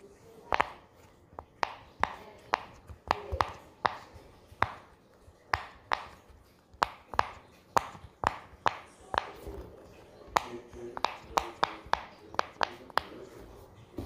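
Silicone pop-it fidget toy bubbles being pressed through with the fingers: a string of sharp little pops, about two a second at an uneven pace.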